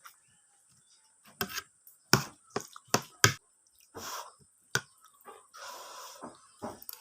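Close-miked eating sounds: a string of sharp smacks and clicks, about seven in all, with a short noisier stretch near the middle and a longer one about six seconds in.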